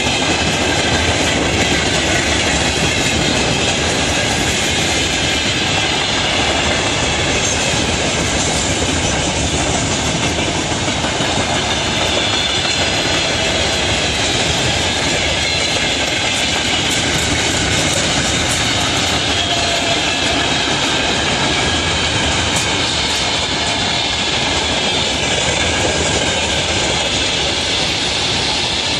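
A train hauled by a 2TE116 diesel-electric locomotive rolling past, a loud steady rumble of steel wheels on the rails with the clickety-clack of rail joints.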